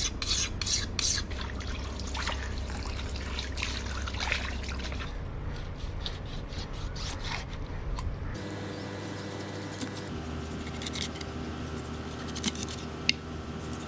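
A knife cutting a dolphin fish (mahi-mahi) into pieces: irregular clicks and scrapes of the blade through flesh and bone, over a steady low hum.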